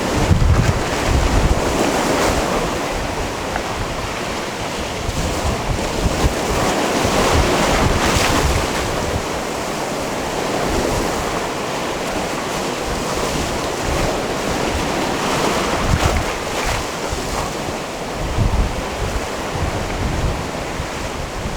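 Sea waves washing onto a rocky shore in slow swells, with gusts of wind buffeting the microphone.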